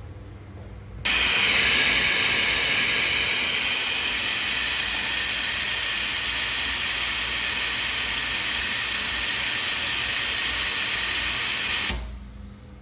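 A loud, steady hiss of air or gas blowing from a nozzle. It starts abruptly about a second in, is a little louder for its first couple of seconds, then holds steady until it cuts off sharply near the end.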